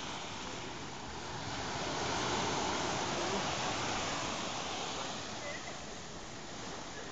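Sea surf washing up on a sandy beach: a steady rush of breaking waves that swells louder about two seconds in and eases off again.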